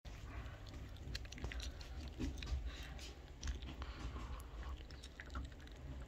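A puppy chewing dry kibble: irregular, quick crunches.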